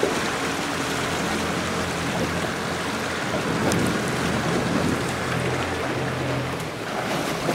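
A small motorboat's engine running with a steady low hum, under a continuous hiss of rain and wind.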